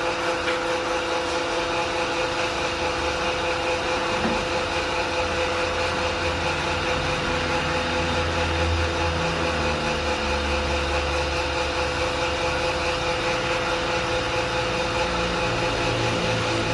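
A 5.5 hp electric animal-feed pellet mill running steadily with a constant motor hum. A low rumble grows stronger around the middle, then eases.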